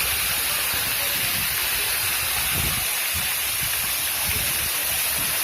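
Waterfall rushing: a steady, loud hiss of falling and splashing water with a low rumble beneath.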